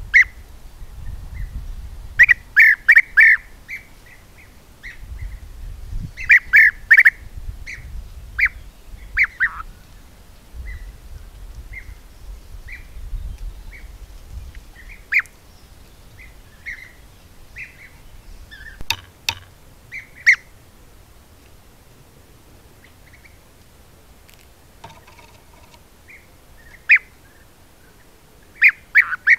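European bee-eaters calling: short calls, singly and in quick runs of three or four, scattered throughout. A low rumble runs under the first half.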